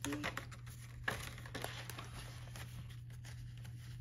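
Paper banknotes rustling and sliding into a clear plastic envelope in a ring binder, with a few soft crinkles and clicks in the first couple of seconds, then quieter handling.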